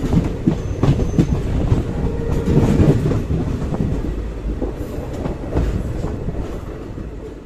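Wheels of a moving passenger train rumbling and clacking over the track, heard close up from an open coach doorway. The sound gets quieter in the last couple of seconds.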